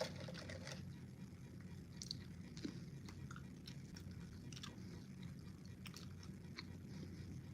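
Faint, wet chewing of a Bean Boozle jelly bean, with a few scattered soft mouth clicks.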